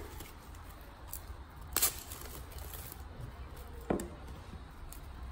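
Cling film being pulled from its roll and wrapped around a ball of dough, with light crinkling and a few sharp crackles, the loudest about two and four seconds in.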